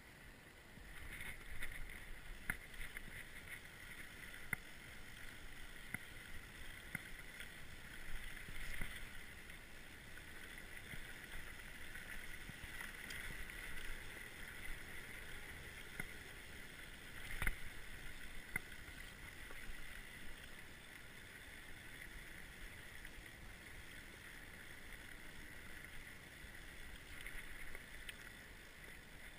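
Orbea Occam mountain bike ridden along a dry dirt and gravel trail: a steady high rattle from the tyres and bike, broken by many sharp knocks over bumps, the loudest a little past the middle.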